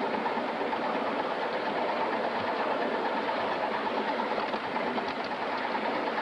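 Home-built Atlantic-type live steam locomotive under steam at its first firing, making a steady, even rushing noise with faint scattered clicks.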